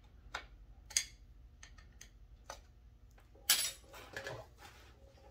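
Scattered light clicks and scrapes of a metal pick digging packed dirt out of a chainsaw's plastic rear handle, with a brief louder clatter of small tools about three and a half seconds in.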